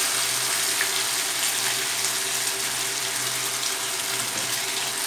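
Katla carp steaks frying in hot oil in a pan: a steady sizzle of bubbling oil.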